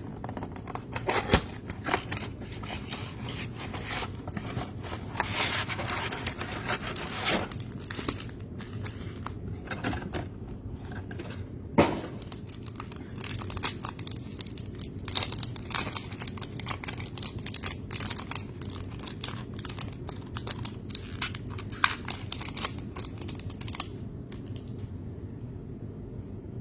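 Plastic cellophane wrap and card-pack wrappers of a trading-card blaster box being torn and crinkled open, with scattered sharper snaps, over a steady low hum.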